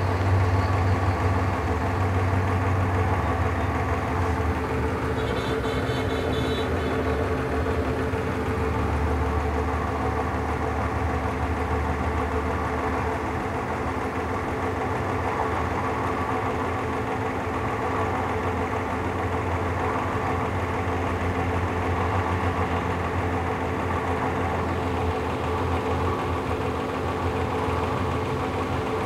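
A steady mechanical hum of running machinery, with a constant low drone and a few steady tones, and a brief higher-pitched patterned sound about six seconds in.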